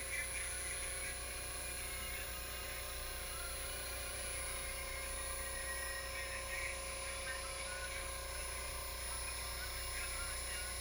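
Steady background hum and hiss with a few faint constant tones, unchanging throughout.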